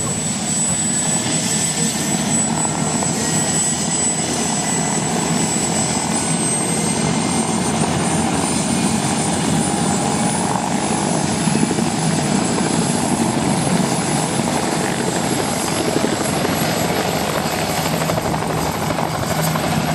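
Bell 206 JetRanger turbine helicopter running on the ground with its main rotor turning: steady loud rotor and engine noise under a thin high turbine whine that climbs slowly in pitch from about six seconds in.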